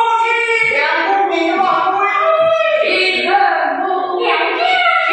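Teochew opera singing: a high-pitched voice holding long notes and bending them up and down in pitch.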